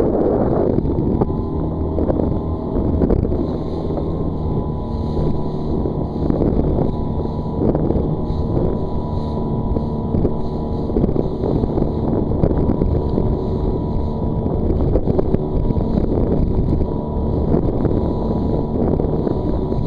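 Motorboat engine running steadily, with strong wind gusting over the microphone.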